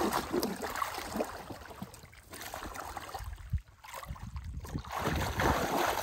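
Wet mud and muddy water sloshing and squelching as a person crawls and gropes by hand through a shallow flooded mud channel, with irregular splashes that grow louder near the end.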